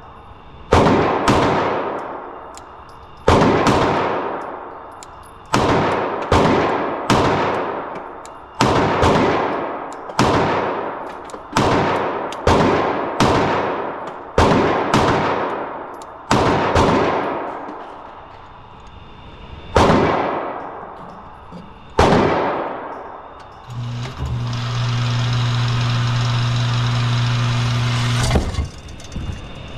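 Glock 19C 9 mm compensated pistol firing about twenty shots, many in quick doubles, each shot echoing away for a second or more. After the last shots a steady low hum comes in, ending with a sharp click near the end.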